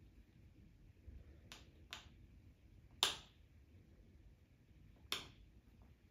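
Four sharp clicks: two close together about one and a half seconds in, a louder one at about three seconds and another just after five seconds, the last two with a short fading tail.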